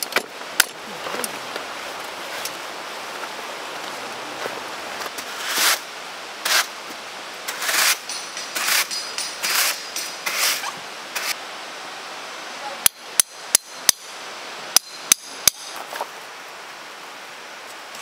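A series of broad rustling or scraping noises, then seven sharp knocks with a faint metallic ring in two quick groups, over a steady rushing background noise.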